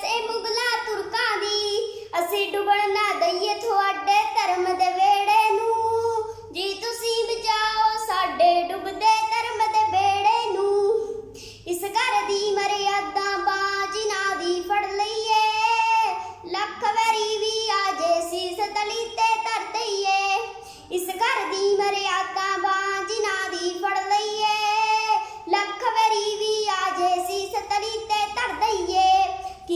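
A young girl singing solo without accompaniment, one melodic line phrase after phrase, with short breaks between lines.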